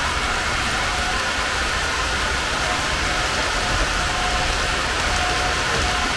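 H0 scale model freight train running on the layout's track: a steady rush of wheels rolling over the rails with a constant hum over it.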